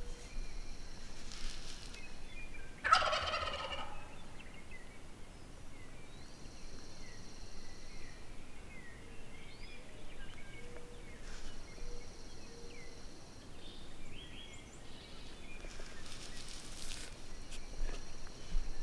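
A Merriam's wild turkey gobbler gobbles once, a rapid rattling call about three seconds in and the loudest sound here. Small birds chirp faintly, and a thin high trill comes and goes for the rest of the time.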